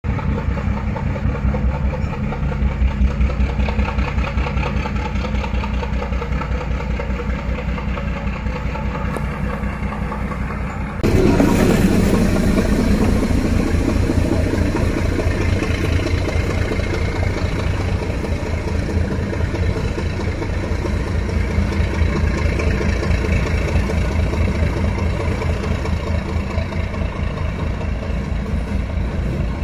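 D12E diesel locomotive engines running with a deep, steady throbbing rumble. The sound jumps abruptly louder and brighter about eleven seconds in.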